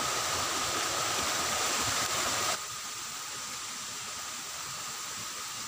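Steady outdoor hiss with no distinct events; it drops abruptly to a quieter level about two and a half seconds in.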